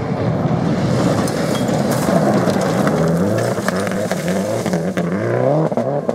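Subaru Impreza rally car's engine revving hard on a gravel stage, the pitch climbing and dropping several times through gear changes as it slides past. Sharp cracks of loose gravel thrown up by the tyres are mixed in.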